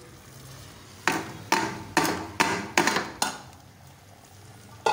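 A metal utensil knocked six times in quick succession against the rim of a steel cooking pot, about two or three knocks a second, then once more near the end. This is the knocking out of the last boiled chana dal into the pot.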